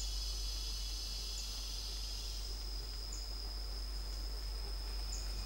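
Jungle-floor ambience: a steady high-pitched insect trill, with a few faint short chirps scattered through it.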